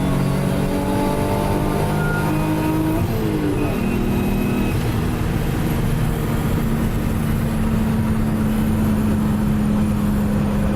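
Turbocharged 2.5-litre straight-six car engine running under way, its pitch dropping at a gear change about three seconds in, then holding steady.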